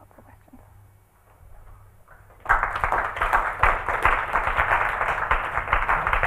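Audience applauding, starting suddenly about two and a half seconds in after a quiet pause.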